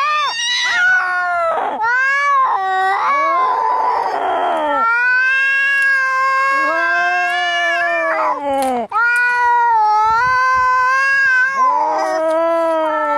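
Angry cat caterwauling: long, drawn-out yowls that rise and fall in pitch, with a harsh hissing burst about four seconds in, the threat calls of a cat squaring up to fight.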